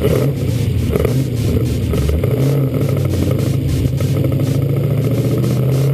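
V8 engine with individual throttle bodies idling and being blipped, heard close to its foam-filtered intake stacks. There is a throttle blip at the start and another about a second in, and the revs begin to climb near the end.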